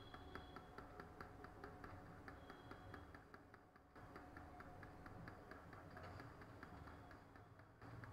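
Near silence: room tone with a faint, rapid, even ticking, about six ticks a second.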